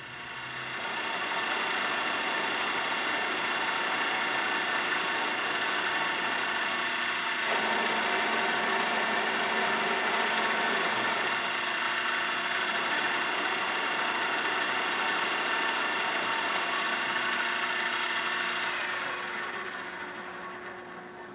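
Ikeda RM-1175 radial arm drill press's spindle drive and geared head (7.5 hp main motor) spinning up, running steadily with a gear whine, then winding down with a falling pitch near the end. The whine changes about seven seconds in.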